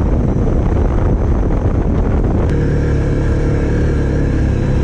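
Unprocessed ride audio: heavy wind rushing over the microphone along with the steady running of a Stels Guepard 850 ATV engine, whose tone stands out more clearly from about halfway through.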